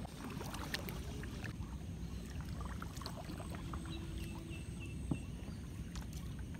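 Kayak paddles dipping and dripping in calm water as the kayak is paddled, with scattered small splashes over a steady low rumble.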